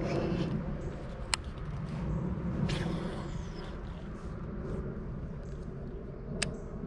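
A boat motor running steadily, mostly low in pitch, with two sharp clicks, one about a second in and one near the end.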